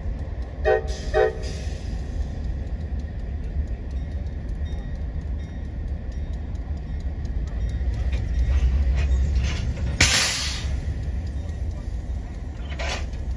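Amtrak diesel locomotive sounding two short horn blasts, the signal that it is about to move, then its engine rumbling steadily as it pulls away, growing louder shortly before a sudden burst of hiss about ten seconds in.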